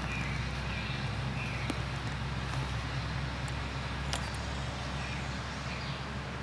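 Woodland outdoor ambience: a steady low rumble under faint short bird chirps that repeat about once a second, with a single sharp click about four seconds in.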